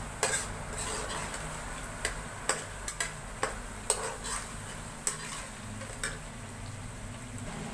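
Slotted metal spatula stirring chicken karahi in a metal karahi, knocking and scraping against the pan in sharp irregular clicks, over a steady sizzle of the cooking gravy.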